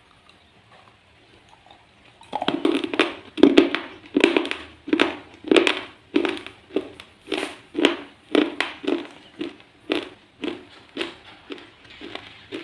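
Close-up chewing of crunchy slate pencil pieces: after about two seconds of quiet, a steady run of loud crunches, about one and a half to two a second, that grows fainter toward the end.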